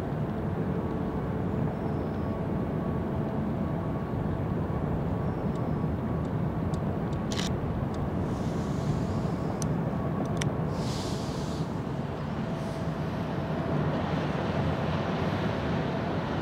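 Steady low rumble of a large cruise ship manoeuvring in port, with faint steady hums above it. A few sharp ticks and two brief hisses come about halfway through.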